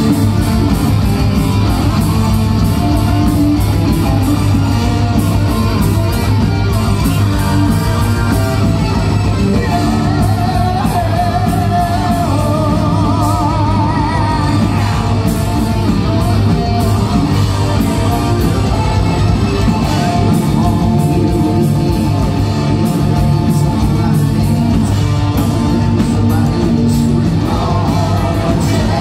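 Live heavy metal band playing at full volume: distorted electric guitars, keyboards and a drum kit keep a steady beat, with a voice singing over them. The sound is that of an amplified band in a large hall.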